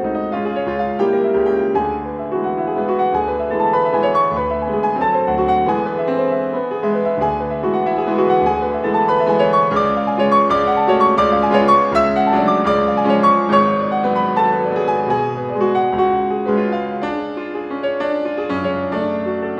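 Piano music, with a run of notes over a steady low pulse.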